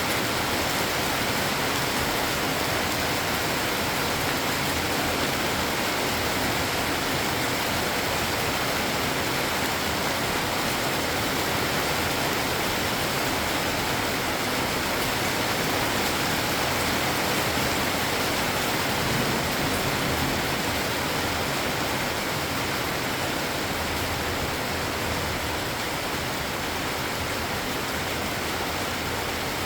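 Steady, heavy rain falling, an even hiss that holds at the same level throughout.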